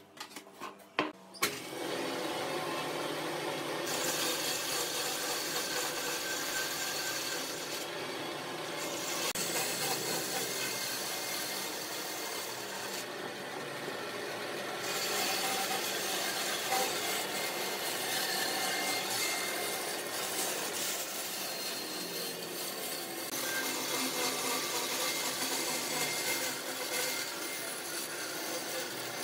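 A power tool working wood, running steadily, after a few knocks about a second in.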